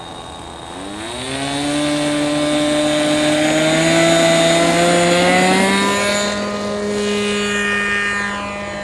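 Radio-controlled model airplane's motor and propeller whining in flight: the pitch dips, then climbs for several seconds as it gets louder, then drops and fades as the plane passes.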